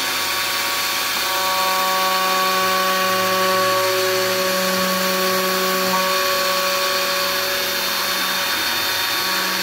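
CNC router spindle driving its bit through 1/4-inch 5052 aluminium sheet on the last pass around the final part. A steady machine whine of several held tones over a hiss, the tones shifting slightly in pitch a few times.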